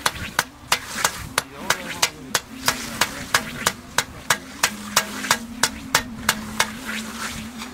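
A scythe blade being peened: a steady run of sharp metal hammer taps on a small anvil, about three a second, hammering the edge thin for sharpening. The taps stop near the end, with voices talking in the background.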